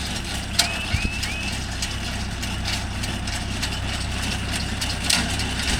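Mahindra Yuvo Tech Plus 585 tractor engine running steadily at work with a baler, with a few sharp clicks over it.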